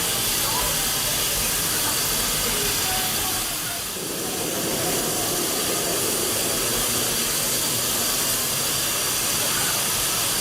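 Steam locomotive standing with steam hissing steadily.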